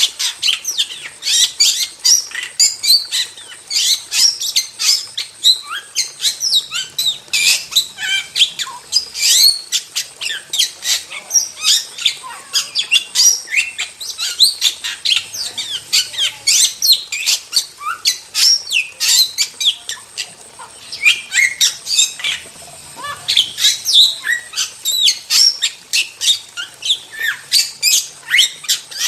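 Starling (jalak) singing nonstop: a rapid, dense stream of short whistles, chattering notes and harsh squawks with hardly a pause.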